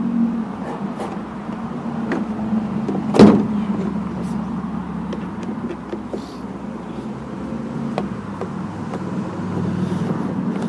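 Workbench handling noises as a small-engine blower is put back together: scattered clicks and taps of tools and plastic parts, with one loud knock about three seconds in, over a steady low hum.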